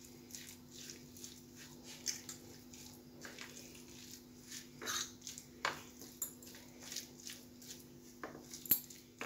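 Shredded chicken, egg and spices being mixed by hand in a plastic tray: faint, irregular scraping and tapping against the tray, with a sharper click near the end.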